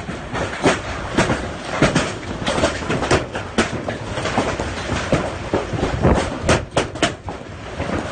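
Heavy hail pelting down: a dense, continuous rattle of hailstones with many louder single impacts at irregular intervals.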